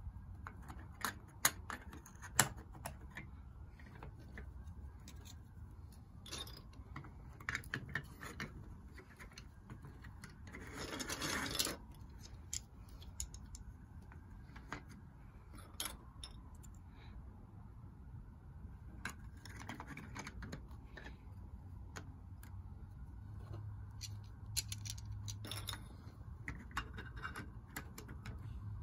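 Hard plastic marble run pieces clicking and knocking as they are handled and snapped together, with a rattle lasting about a second around eleven seconds in.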